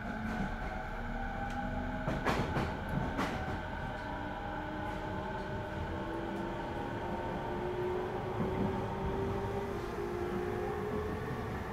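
JR 209 series 2100 subseries electric train running, its MT68 traction motors whining with tones that rise slowly in pitch as the train gathers speed, over a steady rumble of wheels on rail. Two sharp clacks come about two and three seconds in.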